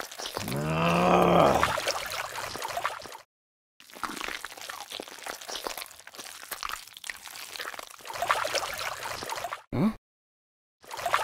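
Squelching, sloshing wet mud and water sound effects as a toy eel slides through mud. About a second in, a short pitched cartoon sound effect rises and falls. The sound cuts out briefly twice.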